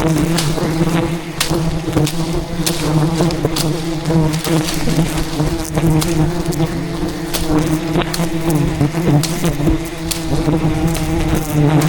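A swarm of wild honeybees buzzing loudly and steadily close around the camera, defending their hive. Frequent sharp ticks through the buzz are bees striking the camera.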